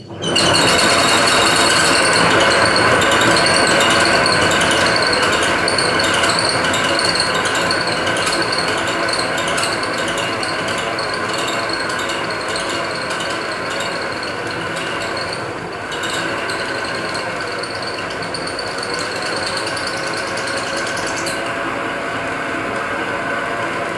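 Metal-turning lathe running under power, a loud steady mechanical whir with a fast rhythmic clatter on top that fades after about ten seconds; a high hiss over it cuts out abruptly near the end.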